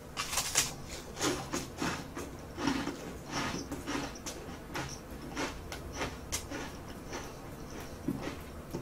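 A bite into a stick of crispy toasted garlic bread, then irregular crisp crunches as it is chewed.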